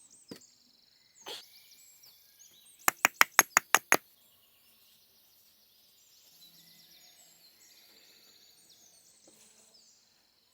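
A quick run of seven sharp knocks, about six a second, about three seconds in, over steady high-pitched chirping of birds.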